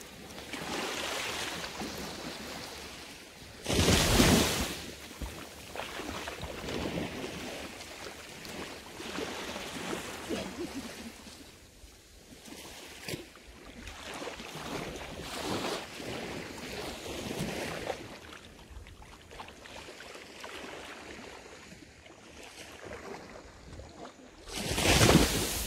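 Small waves lapping and washing up on a sandy beach in calm sea, with wind buffeting the microphone in two loud gusts, about four seconds in and again near the end.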